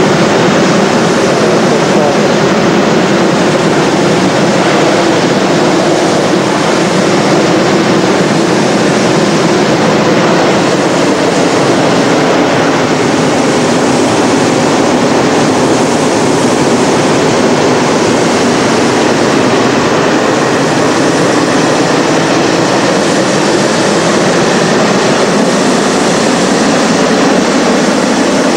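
Hot-air balloon's propane burner firing in one long continuous burn, a loud, steady rushing noise, heating the air in the envelope just before lift-off.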